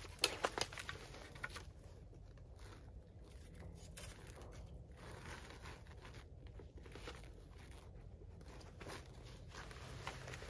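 Rustling and crunching of a person moving among spruce branches with snow underfoot, with a quick run of sharp cracks in the first second that is the loudest part.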